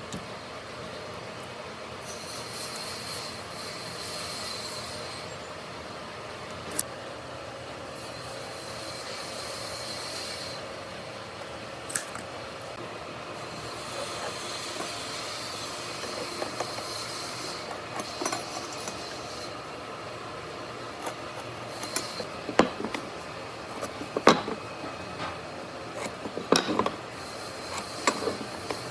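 Rubbing and rasping on wood, coming in spells of a few seconds, with sharp knocks and clicks in the second half.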